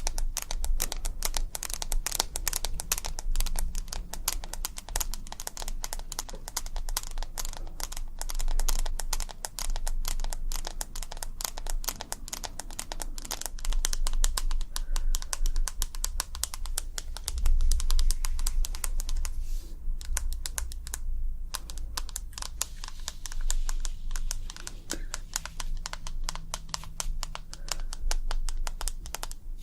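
Rapid ASMR tapping: quick, crisp clicks many times a second, with a brief pause about twenty seconds in, over a low steady rumble.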